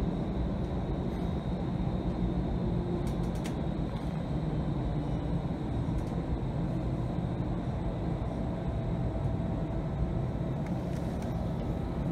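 Cabin noise inside a Bombardier Flexity Freedom light rail vehicle running between stops: a steady low rumble with a few faint clicks.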